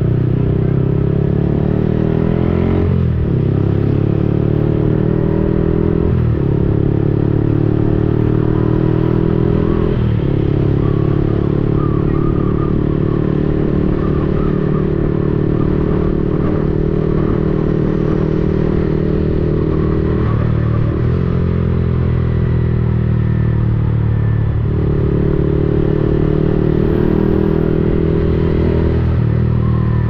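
Yamaha XSR 155's single-cylinder four-stroke engine running through a replica Akrapovic exhaust, heard from the moving motorcycle. It climbs in pitch through upshifts about 3, 6 and 10 seconds in, holds a steady cruise for about ten seconds, then shifts a few more times near the end.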